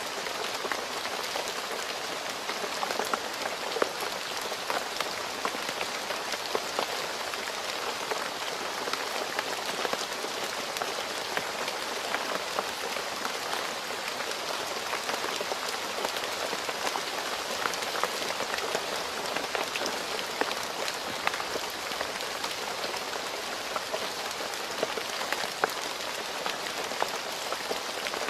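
Steady rain falling on a hard surface, a continuous hiss dotted with many individual drop splashes.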